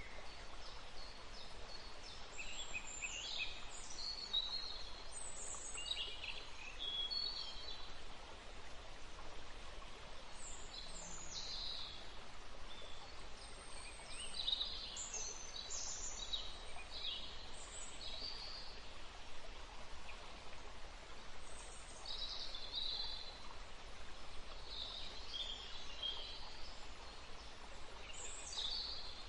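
Small birds chirping in short, high calls scattered throughout, over a steady outdoor background hiss.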